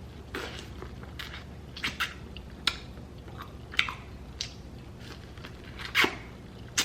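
A person chewing and biting seafood-boil food close to the microphone: wet mouth smacks and about eight short, sharp clicks at irregular intervals over a low steady hum.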